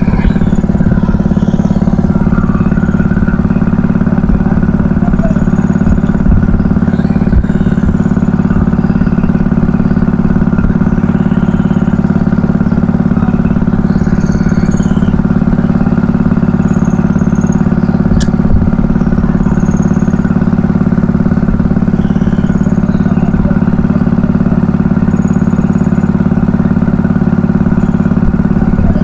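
A fishing boat's engine running steadily at an even speed, with a constant low hum. Faint short high squeaks come now and then, and there is a single sharp click near the middle.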